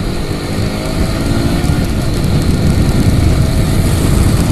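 Honda CBR150R's single-cylinder engine, on its stock exhaust, running as the bike rides along and picks up speed. From about halfway through, wind buffeting the camera microphone grows louder and covers the engine.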